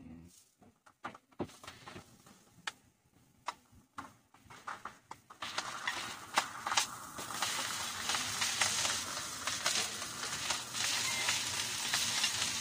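Metal spoon scraping and tapping in a bowl as washed, over-cooked rice is scooped out. About five seconds in, a steady sizzle starts as the wet rice drops into hot garlic oil in a wok, with scraping clicks going on over it.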